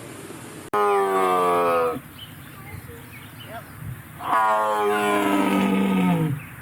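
Tiger roaring twice: two long, loud calls. The first starts abruptly about a second in, and the second about four seconds in drops in pitch as it ends.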